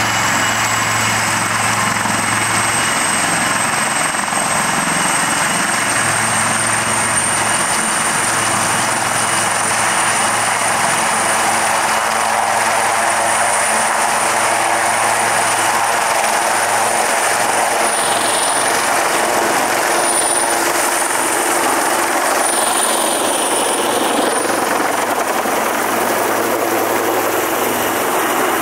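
Two AgustaWestland AW159 Wildcat helicopters running on the ground with rotors turning: a steady, loud rotor and turbine roar with a high turbine whine that rises slightly. One of them passes low overhead about halfway through.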